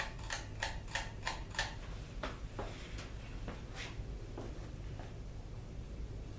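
1982 Casablanca Four Seasons ceiling fan's K55 motor running on low with a low hum and a string of sharp clicks, about three a second at first, then more spaced out and fainter. The owner takes the ticking for bearing noise that came back after the fan sat out overnight.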